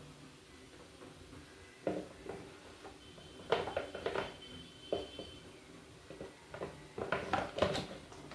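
Light knocks, clicks and rattles of hard parts being handled, in short clusters about two seconds in, around four seconds in and again near the end.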